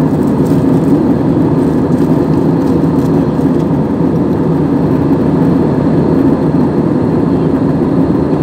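Jet airliner cabin noise in flight, heard inside the cabin at a window seat: the engines and rushing air give a loud, steady, even drone that does not change.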